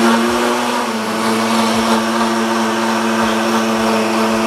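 Countertop blender running at a steady high speed, puréeing a liquid spice marinade of ice water, Scotch bonnet pepper and dry spices.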